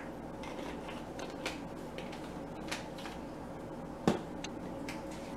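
Light clicks of spice jars and a measuring spoon being handled, with one sharper click about four seconds in, over a faint steady room hum.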